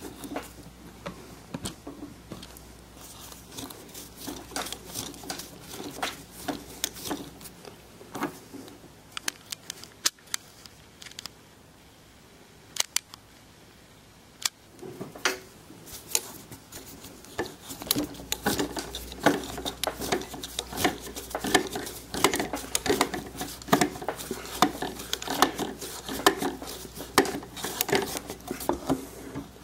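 Threaded insert nut being screwed into plywood with an Allen key turned by a drill, its threads cutting into the wood with a dense, irregular crackle of clicks and creaks. There is a short lull midway, and the clicking is louder and denser in the second half.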